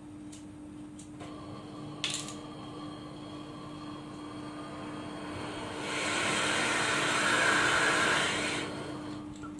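Homemade LPG torch burning propane gas from a hose-fed cylinder: the gas hisses, lights with a sharp pop about two seconds in, then burns with a steady hiss. About six seconds in the gas is turned up and the flame rushes louder for nearly three seconds before dropping back.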